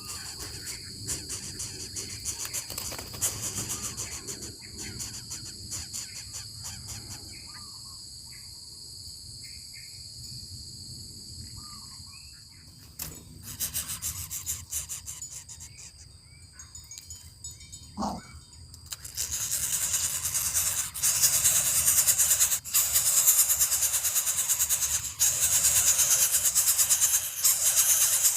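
Steady high-pitched insect buzzing with a few short bird chirps and one rising call about 18 seconds in. About 19 seconds in, music with a loud rhythmic tambourine or shaker takes over.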